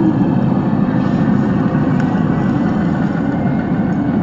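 Radio-controlled model tank running, with a steady, low engine sound.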